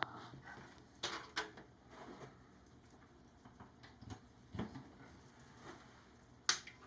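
Scattered faint clicks and taps of cable connectors being handled and plugged into a Redragon 850 W power supply, with the sharpest click near the end.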